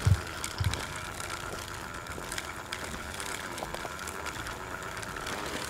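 Hand-crank seed broadcaster being cranked steadily, a gear whir with fast ratchety clicking, while seed is spread. Two soft footsteps on burned ground near the start.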